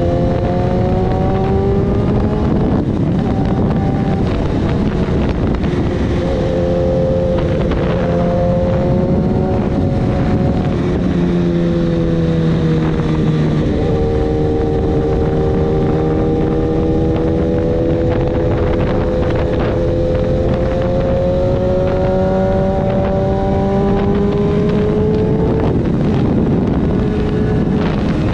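BMW S1000RR's inline-four with an Akrapovic full exhaust system, heard from the rider's seat at road speed. The engine note climbs and drops in stretches with the throttle and gear changes, including one long slow rise in the second half, over steady wind rush.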